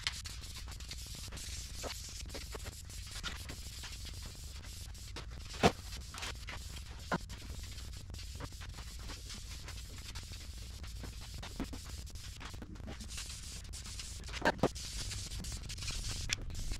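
Hand sanding of a painted motorcycle part with sandpaper on a sanding block: a faint, steady scratching rub, broken by a few sharp taps, the loudest about five and a half seconds in.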